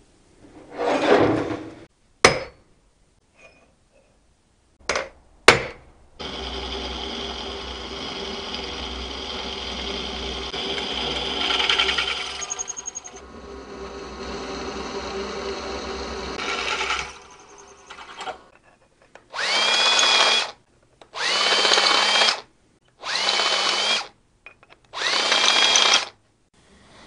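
Benchtop milling machine drilling a steel plate, running steadily for about ten seconds. Then a cordless drill is triggered in four short bursts, each whirring up to speed and holding for about a second.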